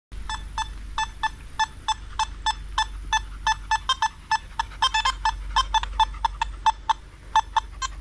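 Nokta Makro Simplex metal detector beeping as its search coil sweeps over targets in the ground: short, sharp tones, about three or four a second, a few of them higher-pitched around the middle.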